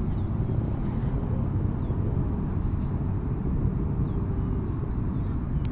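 Steady low outdoor rumble, with short, faint, high chirps falling in pitch that repeat about once a second.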